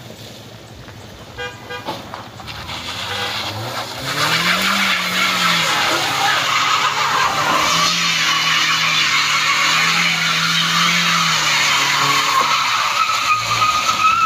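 A car engine revving hard under load while its driven wheels spin with a squeal, struggling for grip on a steep climb. The engine note rises about four seconds in and then holds, the squeal climbs slightly in pitch toward the end, and the sound cuts off abruptly.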